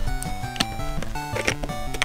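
Background music with a stepping melody, with a few sharp clicks of LEGO bricks being pressed together.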